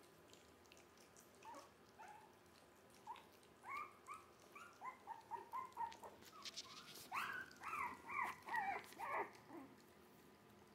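Three-week-old Jack Russell terrier mix puppies whimpering and whining in a string of short, high cries. The cries start about a second and a half in, come faster and louder near the end, then stop.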